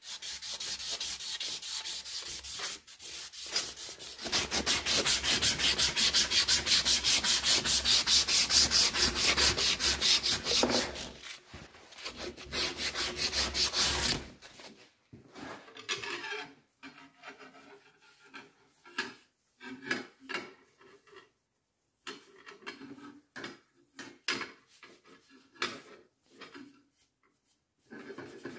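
Rapid, rhythmic back-and-forth abrasive strokes by hand, as in sanding or filing part of a hand-forged sword, for about fourteen seconds, then slower, separate strokes.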